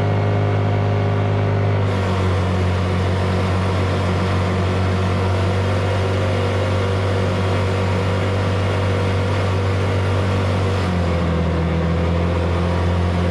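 Off-road vehicle engine running steadily while driving along a sandy beach. The engine note shifts slightly about two seconds in and again near the end.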